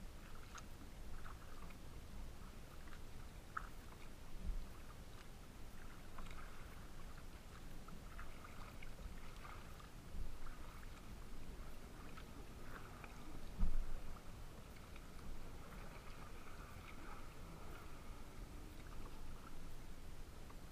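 Small waves lapping and splashing against the plastic hull of a Pungo 140 kayak, with wind rumbling on the microphone. A few dull knocks stand out, the loudest about fourteen seconds in.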